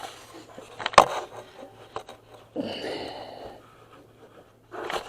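Handling noise from fitting a drive belt around an engine's pulleys: a sharp knock about a second in, a few small clicks, and a brief rubbing noise near the middle.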